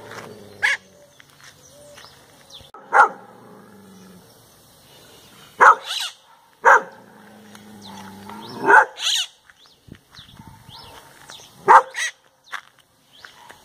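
A maritaca parakeet imitating a dog's bark: about ten short, sharp barks, some single and some in quick pairs, spread with gaps of one to three seconds.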